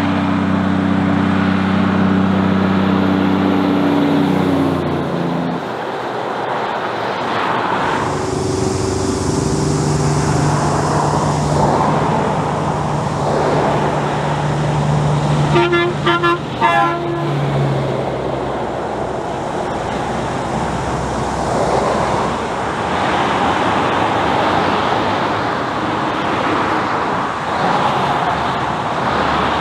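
Heavy trucks and cars passing on a highway: diesel engines drone steadily over tyre noise, and a quick series of short horn toots sounds about halfway through.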